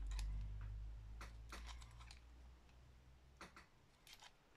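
A handful of faint, irregular clicks and taps as a cordless hot glue pen and small paper pieces are handled, over a low rumble that fades out about three and a half seconds in.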